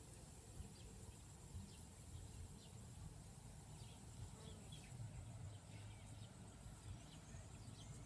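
Quiet rural ambience: faint, short bird chirps now and then over a low steady background rumble and a faint high hiss.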